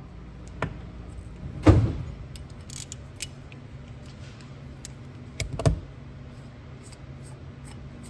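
Small metal clicks and clinks from the parts of a mechanical fuel pump being taken apart with pliers. Two louder knocks stand out, about two seconds in and again between five and six seconds.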